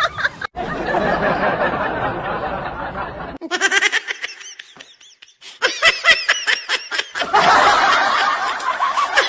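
People laughing, several voices at once. A little over three seconds in the sound breaks off into short, separate bursts of laughter, then swells again toward the end.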